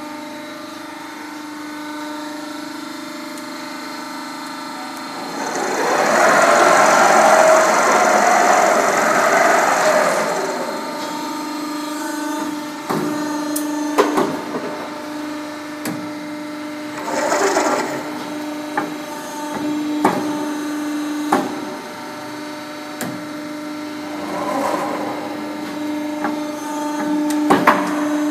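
Hydraulic ironworker with a CNC punching unit running, its hydraulic unit giving a steady hum. A louder noisy stretch comes about six to ten seconds in, then a series of sharp knocks as the CNC feeder positions the steel plate and the punch strikes through it, several in quick succession near the end.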